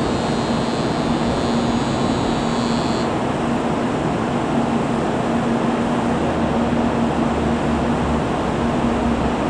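Stationary N700 series Shinkansen trains standing at the platform, their onboard equipment running with a steady hum and a constant low tone. A high hiss lies over it for the first three seconds.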